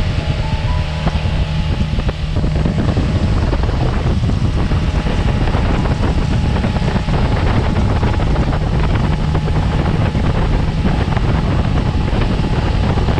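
Motorboat running at speed: a steady engine drone mixed with wind buffeting the microphone and the rush of the wake.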